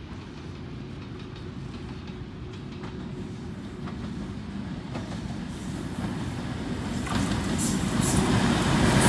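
Coupled Pakistan Railways diesel-electric locomotives running light, the lead engine hauling a dead one, approaching and growing steadily louder. From about halfway in, the wheels click over the rail joints as they near.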